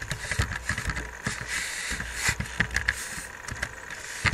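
Computer keyboard keys clicking in quick, irregular succession as a password is typed, over a low background rumble.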